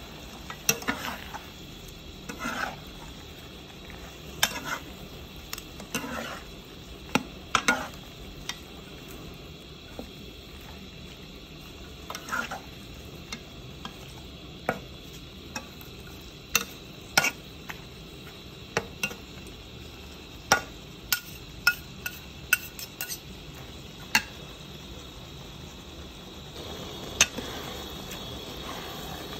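Stir-frying shell-on snails with vegetable stems: metal spoons scrape and clack against a non-stick wok in irregular sharp knocks over a steady low sizzle.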